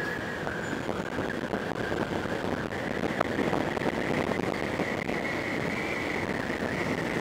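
Honda Click 125i scooter on the move: a steady mix of engine, road and wind noise, with a thin high whine that edges slightly up in pitch.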